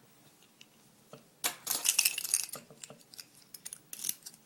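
Small metal lock parts and tools clinking and rattling as a pin-tumbler lock cylinder is handled and taken apart: a dense run of clicks about a second and a half in, then scattered single clicks.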